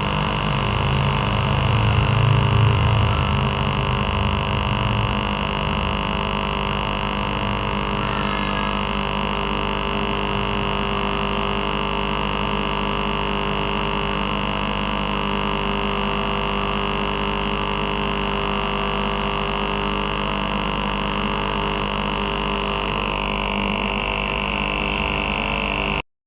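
Aquarium air pump (aerator) humming steadily, with a stronger low drone in the first few seconds.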